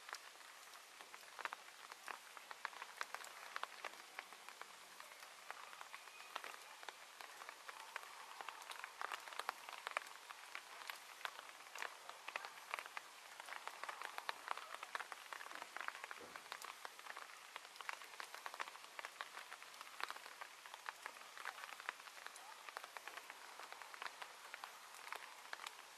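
Faint, dense, irregular pattering and crackling over a steady hiss, with no rhythm or pitch.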